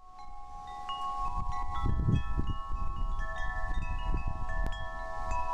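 Chimes ringing: many clear tones struck at irregular moments, each ringing on and overlapping the others, over a low rumble.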